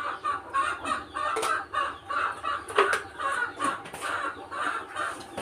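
Chickens clucking in a steady run of short repeated calls, about two to three a second, with a few sharp knocks mixed in.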